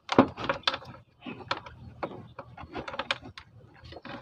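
Close-up handling noise: an irregular run of clicks, taps and rustles from hands working wires and plastic parts in a scooter's wiring, the loudest just after the start.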